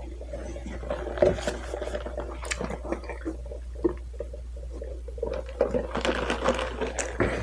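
Close-up mouth sounds of someone eating: chewing food, and sipping a drink through a straw partway through, as small wet irregular clicks.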